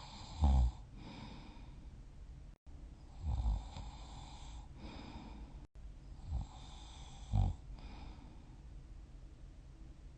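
A sleeping person snoring: four short, low snores a few seconds apart, each falling in pitch, with soft breathing noise between them.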